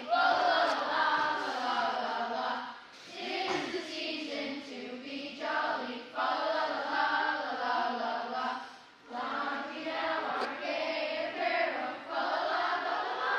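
A school children's choir singing together, in phrases of about three seconds with brief breaks between them.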